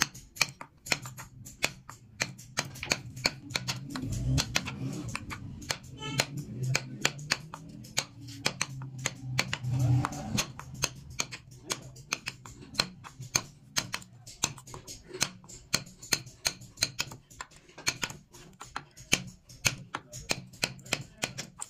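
Hand-held wood-carving chisel cutting small notches into a wooden board: a steady run of crisp clicks, about three a second, as the blade bites into the grain.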